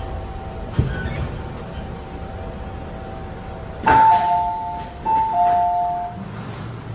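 MTR M-train's door chime, a falling two-note ding-dong sounded twice, as the train's doors open on arrival at a station. Before it, the train's low running rumble dies away with a single thump about a second in as it stops.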